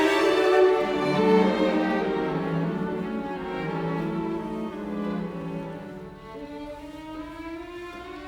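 Background music of bowed strings, violin and cello, playing slow sustained notes and gradually getting quieter.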